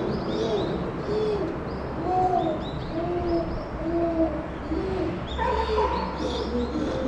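A chimpanzee giving a steady series of short hoots, a little over one a second, each rising and falling in pitch, with faint high chirps above.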